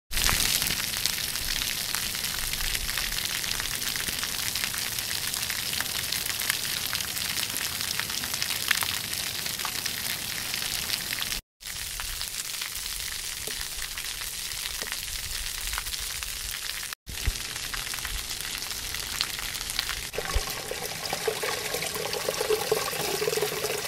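Fountain water jets splashing down onto wet stone paving: a steady spatter of falling water, like rain on a hard surface, with two brief dropouts. A faint pitched sound joins in about twenty seconds in.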